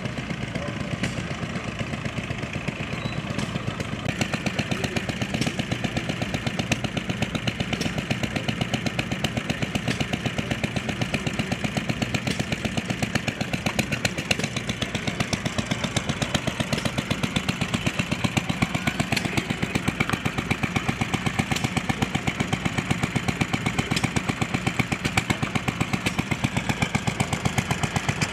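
Small stationary gas engines running steadily, a rapid, even firing beat with no misses, getting louder about four seconds in.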